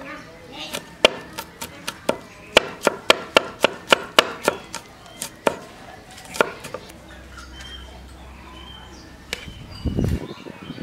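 Cleaver blade knocking on a wooden chopping board as garlic cloves are minced: a run of sharp chops, about four a second at their fastest, that stops about six and a half seconds in. A brief low rumble near the end.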